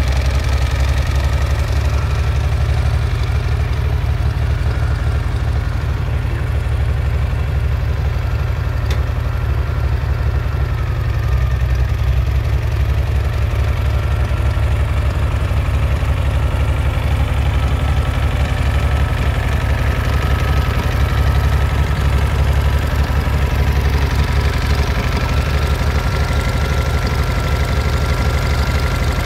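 Farmall 706 tractor engine running steadily at low throttle as the tractor is driven slowly across grass, a heavy, even rumble.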